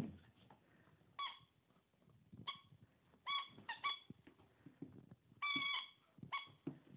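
Squeaky dog toy squeaking over and over as a golden retriever puppy chews it: about eight short squeaks of the same pitch, one held longer about five and a half seconds in, with soft chewing and scuffling between them.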